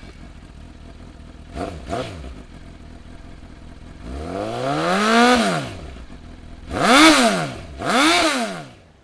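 Motorcycle engine running at idle and revved: two short blips about two seconds in, one long rev that climbs and falls back around the middle, then two sharp revs near the end.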